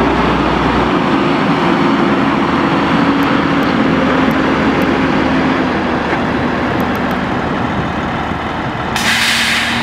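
Crane truck running with its knuckle-boom crane being worked, the engine and hydraulics giving a steady mechanical noise with a whine that slowly falls in pitch as the pallet-fork boom folds in. A short burst of hiss comes near the end.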